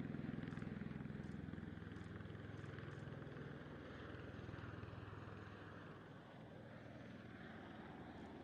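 Bell Boeing V-22 Osprey tiltrotor's rotors and engines, a low, rapid throb that fades over the first half.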